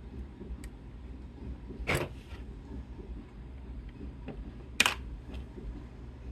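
Two sharp clicks about three seconds apart, the second the louder, with a few faint ticks between, over a steady low hum.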